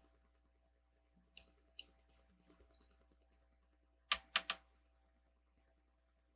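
Hard plastic Lego pieces clicking against each other as they are handled and fitted: a scattered run of light clicks, then three sharper clicks in quick succession about four seconds in.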